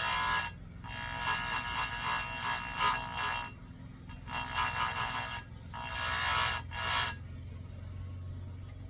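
Electric chainsaw-chain grinder sharpening a chain: the abrasive wheel grinds the cutter teeth in short passes, about four, with a harsh whine, over the steady hum of the motor. The passes stop about seven seconds in, leaving the motor hum alone.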